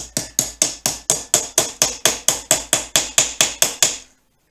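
Small 8-ounce brass hammer tapping on a copper pipe soft jaw cover fitted over a lathe chuck jaw, folding the copper tight over the jaw's corner. The strikes come fast and even, about five a second, and stop about four seconds in.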